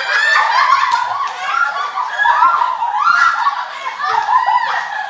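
A group of girls laughing loudly together, many high voices overlapping and swelling in waves through the whole stretch.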